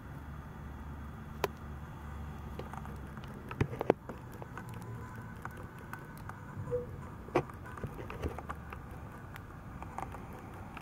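Pet mice gnawing at a seed treat stick on hay bedding: scattered small sharp clicks and crunches, a quick cluster of them about four seconds in, over a steady low hum.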